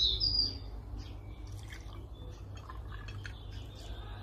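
Zobo (hibiscus drink) poured from a glass jug into a glass, with faint trickling and dripping.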